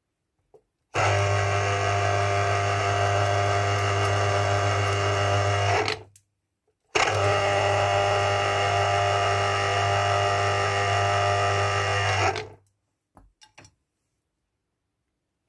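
Electric citrus juicer's motor running in two spells of about five seconds each, with a short break between, while an orange half is pressed onto the spinning reamer cone; the hum is steady in each spell. A few light knocks follow near the end.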